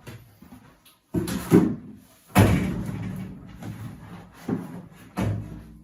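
Several sudden thumps and knocks, the loudest about two and a half seconds in, followed by a low ringing.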